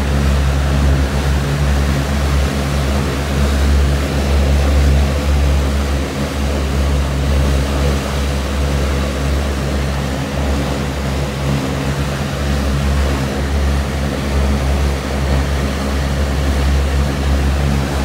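Rotec R2800 seven-cylinder radial engine running steadily on a test stand, its propeller turning, during a warm-up run.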